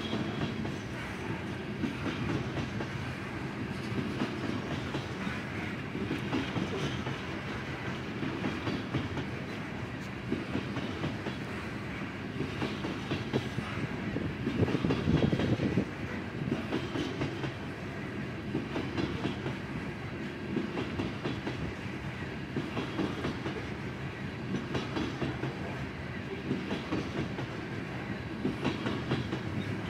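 Coal train's freight cars rolling past: a steady rumble and clickety-clack of steel wheels on the rails, louder for a couple of seconds about halfway through.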